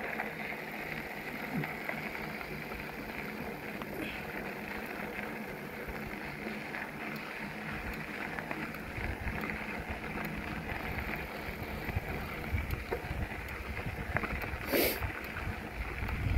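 Steady rolling noise of a bicycle ride along a trail, with wind gusting on the microphone in the second half. A single brief, sharp noise about fifteen seconds in.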